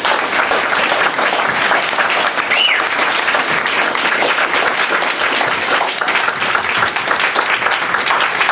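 Audience applauding: dense, steady clapping from a crowd.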